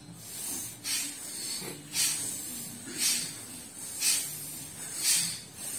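A group doing bhastrika pranayama (bellows breath): forceful, audible breaths in and out, in unison, with a loud hissing breath about once a second.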